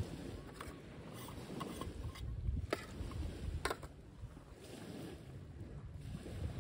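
Low wind rumble on the microphone, with small metallic clicks and knocks as the lid of a brass Trangia alcohol burner is taken off and handled. Two sharper clicks come near the middle.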